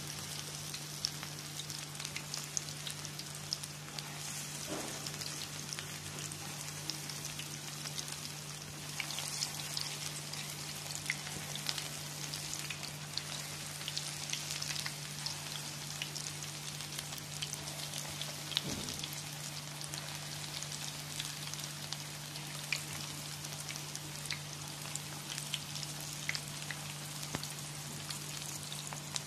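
Moong dal pakoras deep-frying in oil over low heat: a steady sizzle dotted with small crackles, over a constant low hum.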